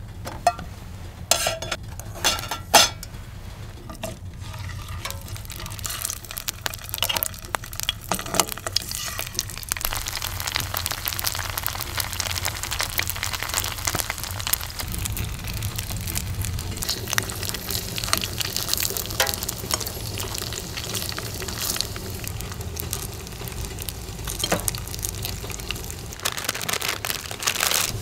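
Food frying and sizzling in a pan on a camping wood stove, a dense crackle of fine ticks that sets in about five seconds in. A few clinks of utensils come before it.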